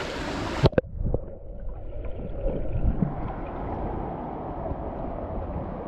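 Shallow water rushing along a concrete-lined canal as a steady wash, with wind rumbling on the microphone. Two sharp knocks come close together under a second in.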